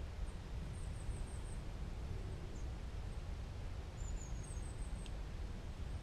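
Quiet woodland ambience: a steady low rumble, with a small bird's thin, very high calls in two short runs of several notes, about a second in and again around four seconds.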